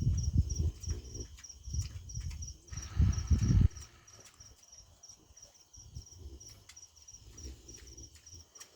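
Sleeping pigs snoring: low snoring breaths, loudest in the first three and a half seconds, then fainter. A high, rapidly pulsing insect chirp runs throughout.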